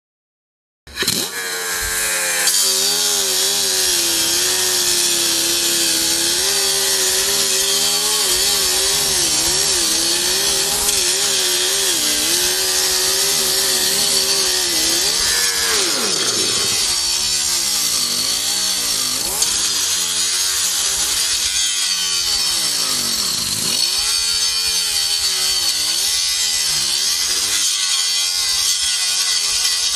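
Angle grinders grinding a flux-core weld on steel, one fitted with a 3M Cubitron II 982C fiber disc and one with a Type 27 ceramic grinding wheel: a loud, steady motor whine under load with the hiss of abrasive on metal, its pitch wavering as the pressure changes. It starts suddenly about a second in.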